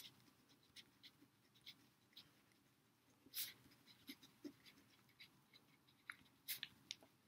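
Faint scratching of a black ink pen on brown parchment paper as a name is handwritten, in short separate strokes; a couple of strokes stand out about three and a half and six and a half seconds in.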